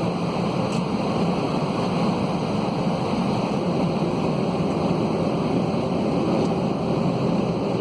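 Steady cabin noise of an Airbus A320-211 airliner: an even rush of engine and airflow noise with no change in pitch or level.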